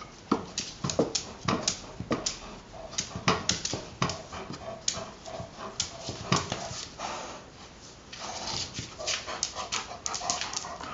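Irish Setter pawing and scrabbling at a soccer ball stuck under a cart, making a run of irregular sharp knocks and scrapes, with thin whimpering in between.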